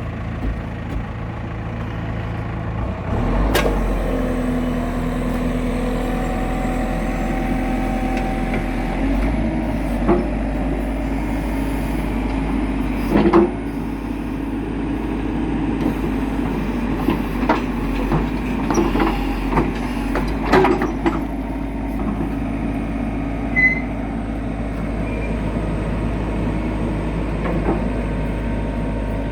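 1998 JCB backhoe loader's diesel engine running steadily and picking up revs a few seconds in, with short sharp knocks at intervals, several in quick succession in the second half.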